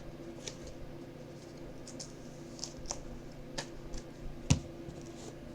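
Trading cards being handled and flipped through: scattered soft clicks and light scrapes, the sharpest about four and a half seconds in, over a faint steady hum.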